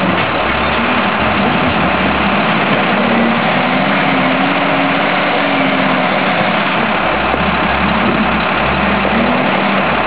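Volvo L120E wheel loader's diesel engine running as the loader drives and turns, its pitch rising through the middle and then falling back as the engine is revved and eased off, under a steady wash of noise.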